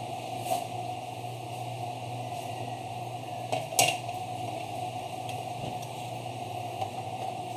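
Parts of an espresso machine's brewing unit being handled: a faint click, then one sharper clack a little under four seconds in, over a steady low hum and hiss.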